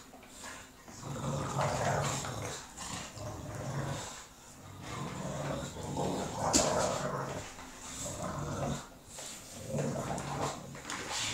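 Two bulldogs growling in play while tugging at a toy, in several bouts of a second or two each. There is a sharp click about two-thirds of the way through.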